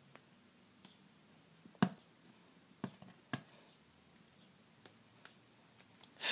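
Hands working at the packaging of a metal Blu-ray steelbook case: a handful of sharp, scattered clicks and taps, the loudest about two seconds in.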